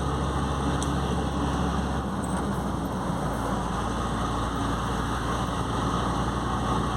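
Mercedes-Benz OM 449 diesel truck engine running steadily; its low hum changes pitch slightly about two seconds in.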